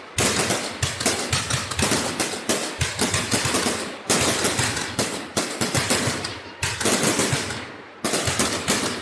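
Fireworks going off in rapid volleys of sharp bangs and crackles, several shots a second; each volley starts suddenly and dies away over a second or two before the next begins, about four times.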